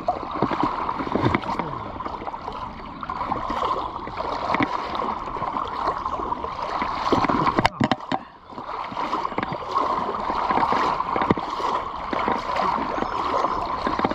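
Creek water running and babbling over rocks, a steady rushing wash with small splashes and trickles, briefly cut off a little past the middle.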